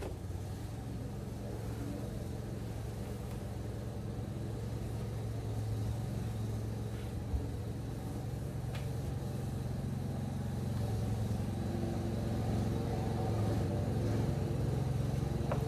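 A steady low engine-like rumble that slowly grows louder, with a faint click or tap now and then.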